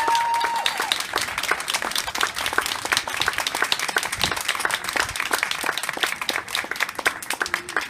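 Audience applauding with dense, irregular clapping after the band's final chord, with a high cheer gliding up and down in the first second.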